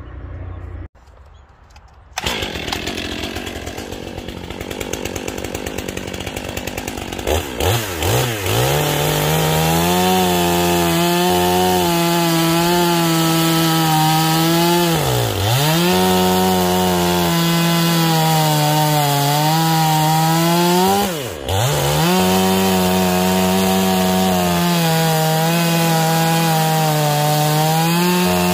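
Stihl two-stroke chainsaw with a 25-inch bar: after a few seconds it revs up and runs at full throttle, cutting down through an upright log to square it. Its pitch dips briefly and recovers twice, about halfway through and again near the end.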